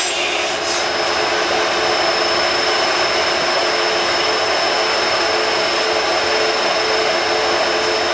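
Workshop machinery running steadily: the even rushing drone of electric power-tool motors and dust extraction, with a constant whine held over it.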